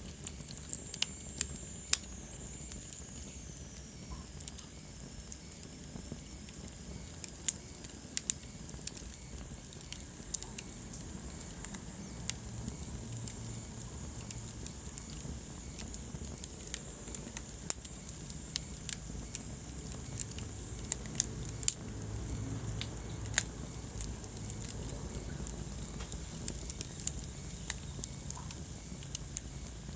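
Wood fire burning in a fireplace: a steady low rumble of flames with irregular sharp crackles and pops from the burning logs. A faint high whistle slides down in pitch in the first few seconds.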